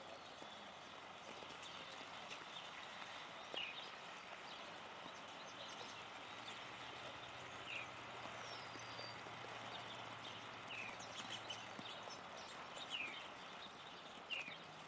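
Steady hiss of light rain on leaves, with a handful of sharp taps a few seconds apart as a Steller's jay pecks at food in a wire basket feeder.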